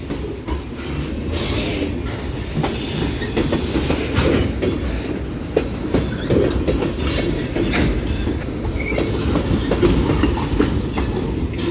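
Freight cars of a passing train rolling by at close range: a steady rumble of steel wheels on rail, with the irregular clickety-clack of wheels crossing rail joints.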